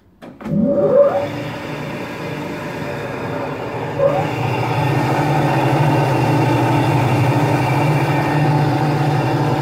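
Alexanderwerk SMZ 35/106 cutter-grinder switched on: a click, then its two-speed electric motor spins up with a rising whine and settles into a loud, steady running hum. There is a brief surge about four seconds in.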